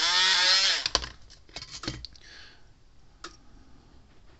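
A few sharp clicks and light knocks of pliers and a metal spade connector being handled at a workbench, most of them between about one and two seconds in, with one more click a little after three seconds.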